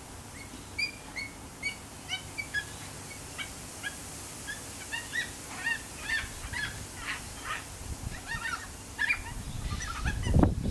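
Yellow-tailed black-cockatoos giving short, repeated high calls, a few a second and busier in the second half. A louder low rumble comes in near the end.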